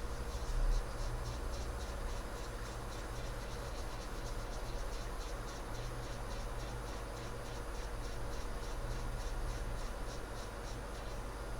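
Hot air rework station blowing steadily while it heats an iPhone 8 CPU off the logic board, with a fast high ticking about four times a second and a low mains hum. There is a low thump about half a second in.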